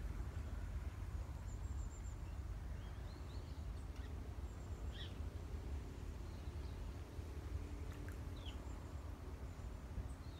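Outdoor ambience: a steady low rumble with scattered short, high bird chirps and calls.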